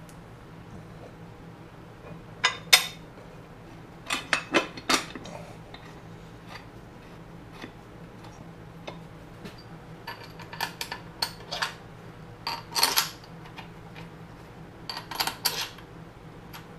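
Scattered metallic clinks and taps in short clusters from bolts and hand tools being handled against the cast-iron disc brake housing of a Farmall Super M as a housing bolt is started by hand. A faint steady low hum runs underneath.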